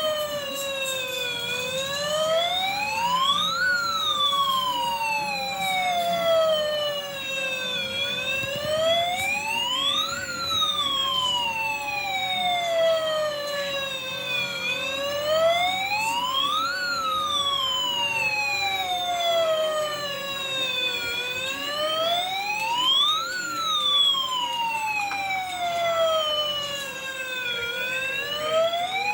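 Fire truck siren sounding a slow wail. The pitch climbs for about two seconds, then falls for about four, repeating about every six and a half seconds over a steady lower tone.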